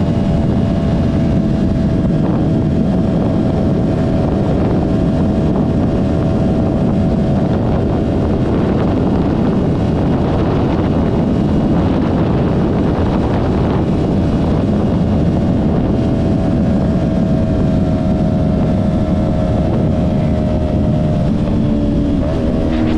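2023 Yamaha R3's parallel-twin engine through an M4 Street Slayer exhaust, running steadily at cruising speed with wind rushing over the microphone. Near the end the engine note drops.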